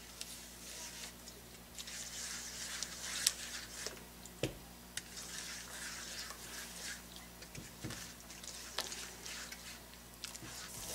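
Faint, soft squishing and scraping of a silicone spatula stirring a thin milk-and-ghee mixture in a frying pan as milk powder is stirred in, with scattered light clicks of the spatula against the pan.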